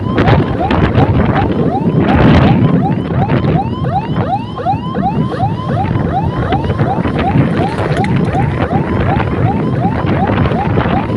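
Electronic siren in a fast yelp, repeating rising sweeps about three times a second, over wind rushing on the microphone of a moving scooter, with a louder gust of wind noise about two seconds in.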